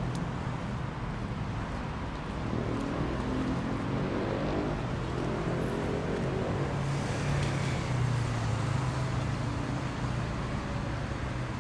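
City avenue traffic: a steady rumble of cars driving past. A few seconds in, one vehicle's engine note climbs in pitch as it accelerates, and the rumble swells again around the middle.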